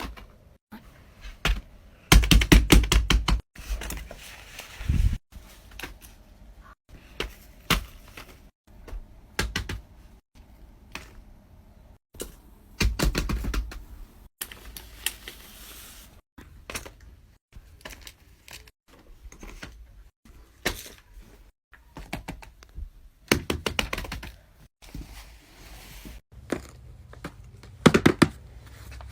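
Fidget toys being clicked and popped: single sharp clicks and quick runs of rapid clicks, with a few dull thunks.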